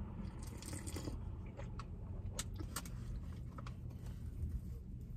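Steady low rumble inside a car's cabin, with a few faint scattered clicks and rustles as a takeaway coffee is sipped and a doughnut is bitten into over a bag.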